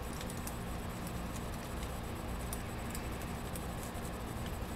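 Faint, irregular small metallic ticks and scrapes of lock picks working inside a Brinks padlock, over a steady low background hum.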